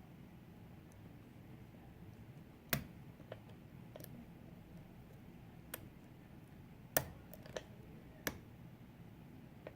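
A lock pick working the pins of a custom five-pin lock with the plug in a false set. Several sharp, separate clicks come at uneven gaps, the loudest about three seconds in and again about seven seconds in.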